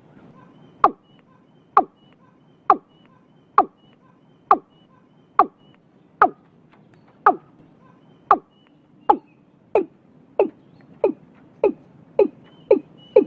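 Watercock (cúm núm) calling: a series of short, deep notes, each dropping in pitch, about one a second at first and quickening to about two a second near the end.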